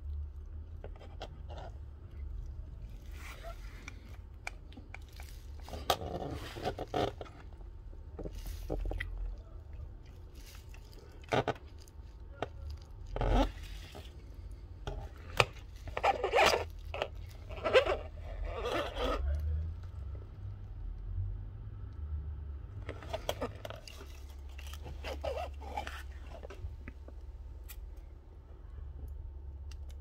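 Irregular scraping and clicking of hand tools working on a small electronic device during a charging-port repair, in short bursts with pauses between, over a steady low hum.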